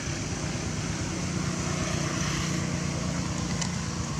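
Steady low engine hum of a motor vehicle under an even hiss of outdoor background noise.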